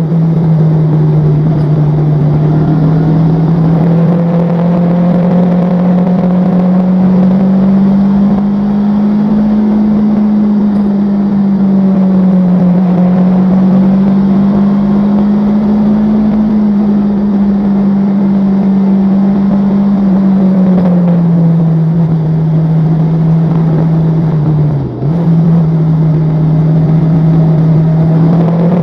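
A vehicle running steadily, heard on board during a ride: a strong low drone that drifts slowly up and down in pitch, with a brief dip about 25 seconds in.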